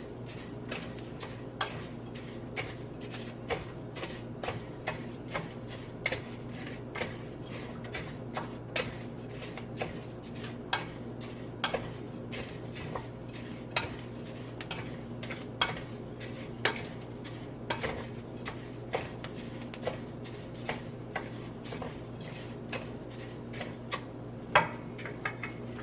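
A utensil scraping and knocking against a pan as raw rice is stirred and toasted in oil until golden, with irregular clinks about one or two a second over a steady low hum.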